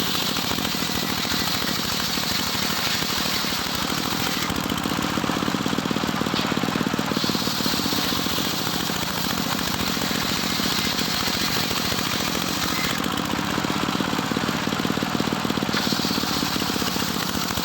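Engine-driven sawmill circular saw running steadily while it saws teak, the blade adding a higher hiss in three long stretches as it goes through the wood.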